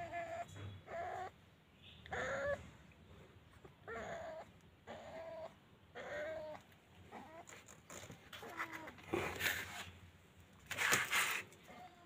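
Newborn kittens mewing: a string of short, thin, high cries, each about half a second long, repeated every second or so. About nine seconds in, and again near the end, there are loud rustling handling noises, the second of them the loudest sound here.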